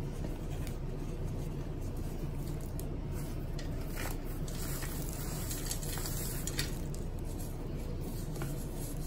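Dry powdery crumbles squeezed and rubbed between bare hands, giving soft scattered crunches and gritty rubbing, over a steady low background rumble.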